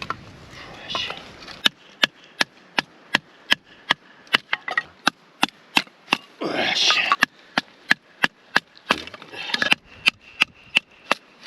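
Firewood being split: a steady run of sharp wooden knocks, about two and a half a second, with a short splintering crackle as pieces come apart.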